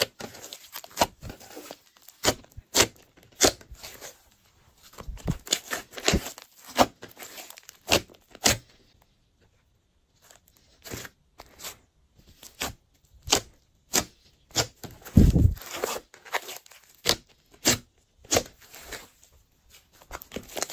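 Hands squishing, folding and pressing glossy slime: a quick run of sticky pops and crackles. They stop for about two seconds midway, and a heavier, deeper squelch comes about three quarters of the way through.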